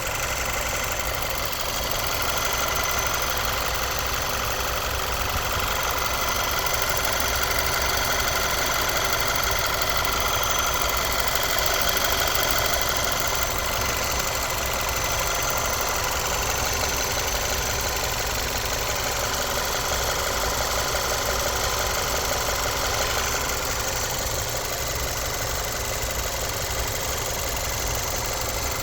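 Audi A4 B8 engine idling steadily, with a running noise that the owner puts down to the timing chain.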